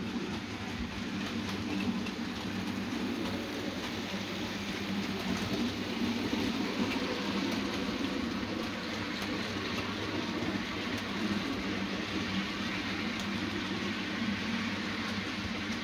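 OO gauge model goods train, a steam locomotive with a rake of short-wheelbase wagons, running along the layout track: a steady motor hum and rolling-wheel rumble with a few faint clicks over the rail joints.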